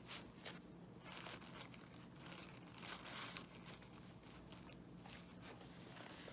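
Faint rustling and light scraping of hands handling a soft chocolate bar and its packaging, with a couple of small clicks near the start.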